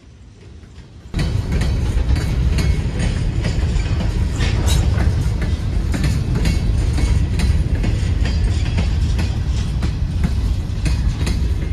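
Freight train passing close by, a loud rumble with rapid clicking of wheels over the rail joints, starting abruptly about a second in.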